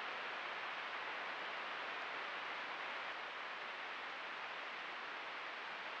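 Steady hiss of running creek water picked up by a trail camera's microphone, with a faint high steady tone above it.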